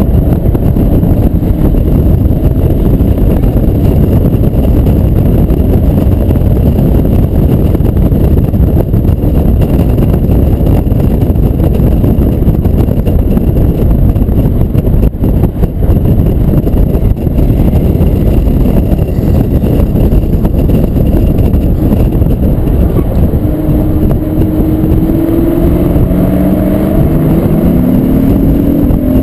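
Loud, steady wind and road rush on an outside-mounted camera on an Acura TL Type-S at track speed, with the car's V6 engine running underneath. Near the end the engine note rises in pitch several times as the car accelerates.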